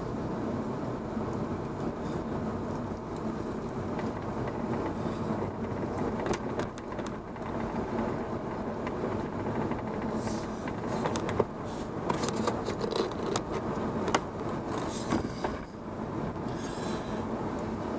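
A car driving slowly on a gravel road, heard from inside the cabin: a steady rumble of tyres on the unpaved surface with scattered clicks and rattles, busier in the second half.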